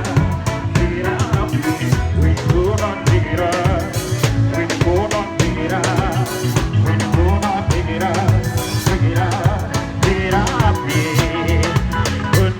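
Live band playing an instrumental passage: a drum kit with bass drum, snare and rimshots under bass and wavering melodic lines.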